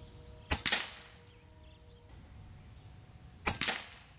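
FX Lil Slugger Power Pup PCP bullpup air rifle firing 25.39 grain pellets: two shots about three seconds apart. Each is a sharp crack followed a split second later by a second, longer crack that fades off.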